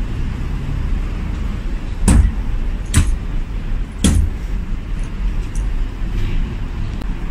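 Folded umbrella knocking on a wooden front door: three sharp knocks about a second apart, over a steady low rumble.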